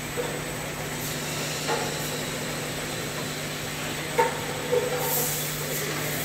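Automatic bottle-filling line running with a steady machine hum, broken by a few short knocks of bottles and machine parts and a brief hiss about five seconds in.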